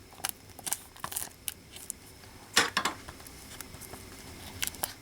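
A new Blu-ray case's plastic wrapping being picked at and opened by hand: scattered sharp clicks and scratchy crackles, with a louder burst of crinkling about two and a half seconds in.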